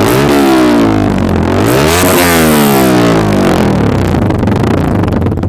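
Yamaha R15 V3's 155 cc single-cylinder engine revved twice through an Austin Racing full-system exhaust with no dB killer fitted. Each time the revs climb and fall back, the second blip about two seconds in, before the engine settles to idle.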